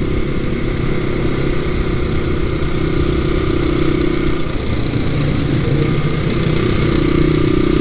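Motorcycle engine running at a steady cruise, with wind noise on the microphone. The engine tone weakens for a couple of seconds a little past halfway, then comes back.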